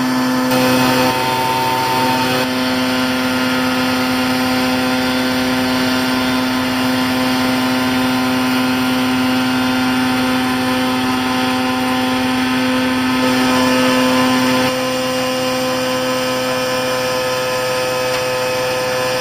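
Vacuum excavator truck's engine and suction blower running steadily at full load while drawing gravel up a long hose: a loud, even drone with several held tones over a rushing hiss. About three-quarters of the way through, the lowest tone stops and the sound drops a little.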